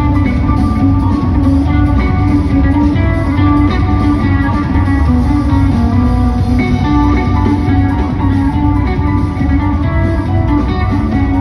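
Live rock band playing a guitar-led instrumental passage over bass, loud and continuous, heard from the crowd in an arena.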